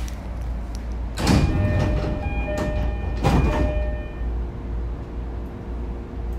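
Passenger doors of an E231-series electric commuter car opening at a station stop: a sharp hiss of air about a second in and again about two seconds later, with a door chime sounding between them. Under it is the steady low hum of the standing train.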